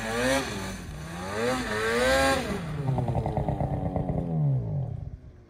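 Ski-Doo two-stroke mountain snowmobile engine revving up and down several times as the sled ploughs down a steep powder slope. About four and a half seconds in the revs fall away and the engine goes quiet as the sled buries itself in deep snow.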